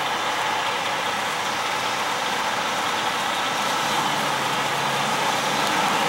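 John Deere 9410R tractor running steadily as it pulls a Brent 1082 grain cart. Its engine drone grows slightly louder, and a low hum comes in about halfway through as it draws nearer.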